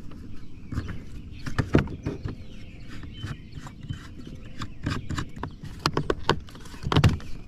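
A series of irregular knocks and thumps, with the loudest about two seconds in and again near the end, over a low steady rumble.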